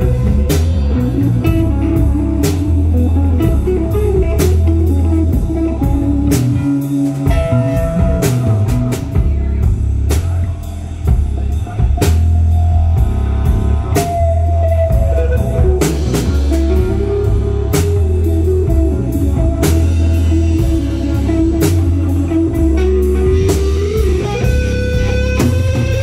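Live rock band playing loud: electric guitar through a Marshall amp stack, bass guitar and a drum kit, with sustained, bending guitar notes over steady drum hits. The low end drops out briefly about seven seconds in.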